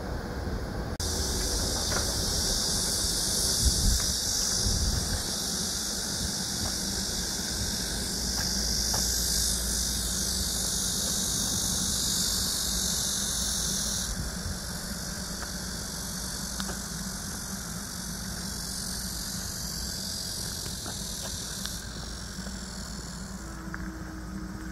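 A chorus of cicadas buzzing steadily and high, easing off about halfway through and fading near the end, over a low steady rumble.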